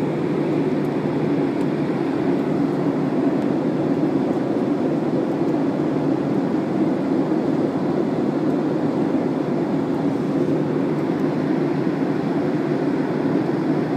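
Steady rushing drone of a jet airliner's cabin in cruise flight, even and unbroken.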